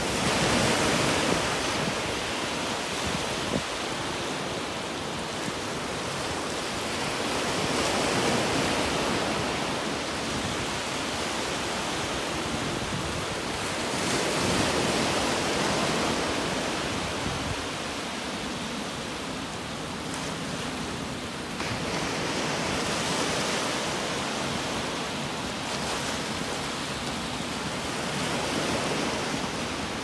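Small waves breaking and washing up on a sandy beach: a continuous surf hiss that swells about every seven seconds as each wave comes in.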